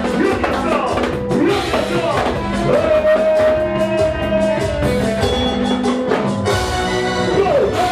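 Live band music: a drum kit keeps a steady beat under a sustained melody line that slides between held notes.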